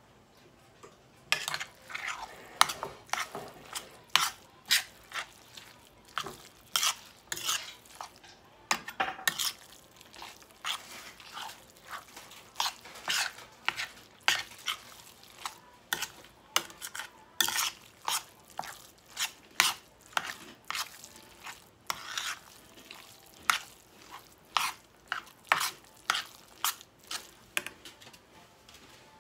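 Metal spoon stirring and scraping a mix of ground meat and chopped vegetables in a large stainless steel pan, in irregular strokes of about one or two a second, starting about a second in.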